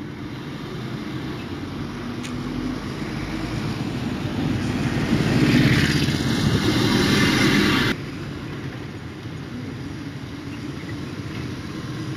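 Motor vehicle engine sound effect that grows steadily louder for several seconds, then cuts off abruptly about eight seconds in, leaving a quieter engine hum.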